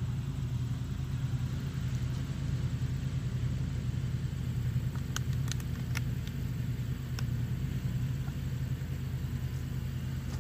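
A lawn mower engine running steadily, a low even hum, with a few light clicks about halfway through.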